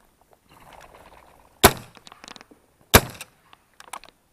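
Two shotgun shots about a second and a half apart, close and loud, after a brief rustle.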